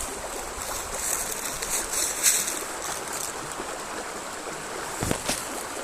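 Small river flowing over rocks, a steady rushing hiss, with a few brief rustles and knocks about two and five seconds in.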